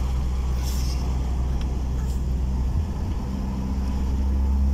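Car engine and road noise heard from inside the moving car's cabin, a steady low drone. It dips briefly about three seconds in, then grows louder near the end.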